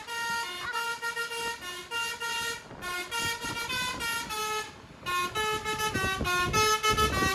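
A bus's telolet basuri horn, a multi-note air horn, playing a fast tune of short stepped notes. The tune breaks off briefly about three seconds in and again just before five seconds, and a low rumble comes up near the end.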